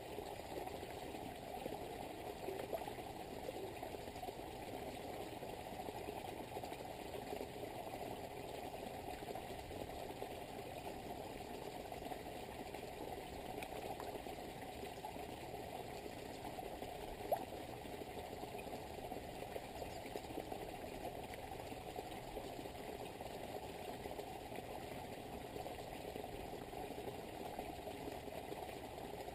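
Small waterfall spilling steadily into a garden pond, the water splashing and churning the surface, with one sharp click a little over halfway through.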